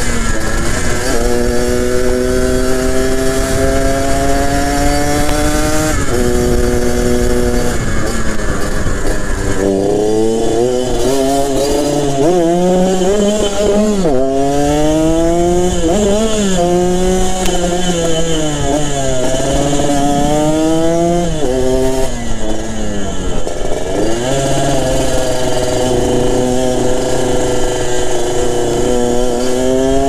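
Yamaha RX-King's two-stroke single-cylinder engine through a B2M racing exhaust, heard while riding. It climbs steadily in pitch under throttle, drops sharply about six seconds in as it shifts up, then rises and falls repeatedly as the throttle is opened and closed. Wind buffets the microphone for the first ten seconds or so.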